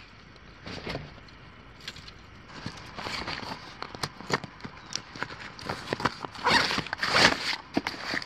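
Nylon backpack being opened and unpacked by hand: plastic strap buckles clicking and webbing being pulled, with a loud run of rustling fabric about six and a half seconds in as gear is pulled out.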